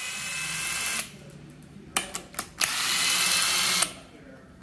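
Cordless power tool spinning out the main bearing cap bolts on a Jaguar XK engine block, in two short whirring runs, one per bolt, with a few metallic clicks of the socket between them.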